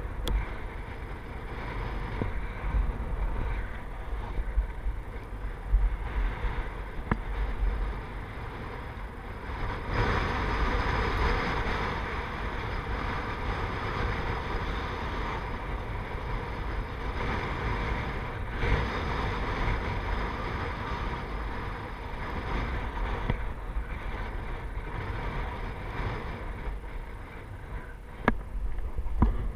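Wind buffeting an action camera's microphone on a ski slope: a steady low rumble with a hiss that swells for about a dozen seconds in the middle.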